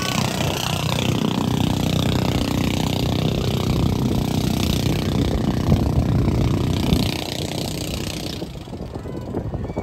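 Outrigger motorboat engine running steadily over a hiss of wind and water spray, getting quieter near the end.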